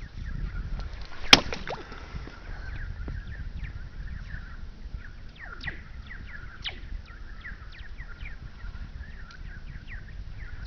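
A stick strikes the ice of a frozen pond once, sharply, about a second in. Many short chirps that drop quickly in pitch follow throughout: sound running through the ice sheet and coming back as odd, laser-like whistles.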